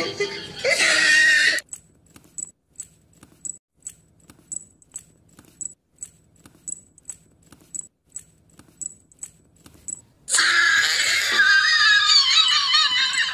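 Battery-powered walking plush toy stepping across a tiled floor, its mechanism giving soft, even clicks about two or three times a second. A loud, high, wavering voice-like sound fills the first second and a half, and another starts about ten seconds in.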